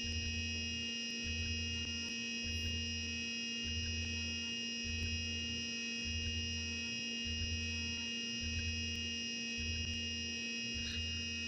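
CNC milling machine running a small end mill cutting grooves in brass: a steady whine made of several held tones, with a low throb that comes and goes about once a second.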